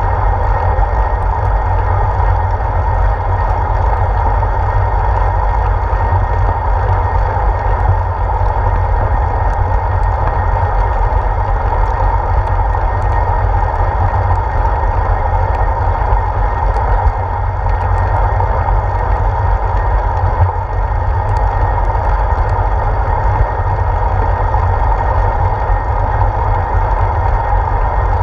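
Steady wind rumble and road noise on a handlebar-mounted GoPro Hero 4 on a moving bicycle, deep and unbroken, with a brighter hum in the middle and a few faint scattered ticks.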